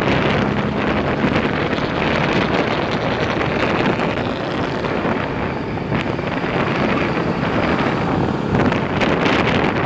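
Heavy wind noise buffeting an earphone mic inside a motorcycle helmet while riding, with the Bajaj N160's engine humming faintly underneath.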